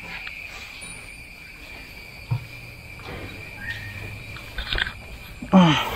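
A water buffalo gives a low, steady call a little over two seconds in, lasting about two and a half seconds, over a steady high chirr of insects.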